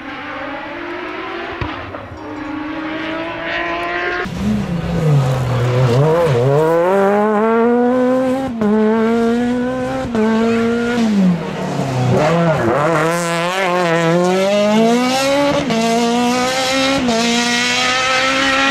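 Rally car engine at full throttle, climbing through the gears with quick upshifts. It gets much louder about four seconds in, falls in pitch twice as it slows, and pulls hard through the gears again each time.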